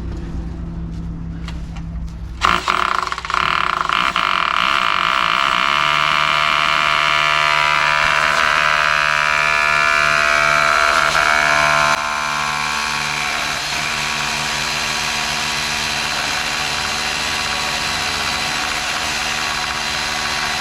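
An engine running steadily. It gets suddenly much louder about two and a half seconds in and eases back a little about twelve seconds in.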